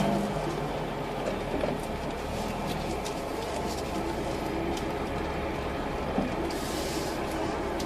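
Car engine running and road noise heard from inside the cabin while driving at a steady pace, with a few faint ticks and rattles.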